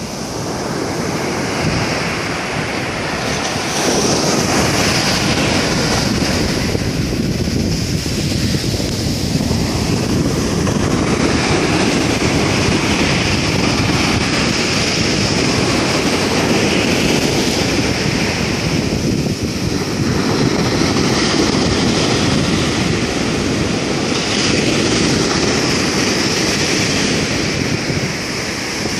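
Rough sea surf: waves breaking and foaming up a sandy beach in a continuous rush of water, a little louder after the first few seconds.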